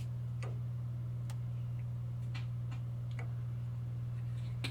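Scattered light clicks and taps from handling and adjusting a jointer blade against its stop, coming irregularly about every half second to a second, over a steady low hum.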